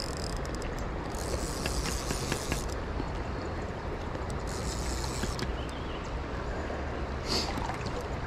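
Wind rumbling on the microphone over the steady rush of shallow river water, with scattered faint clicks and two stretches of brighter hiss about one second in and about five seconds in.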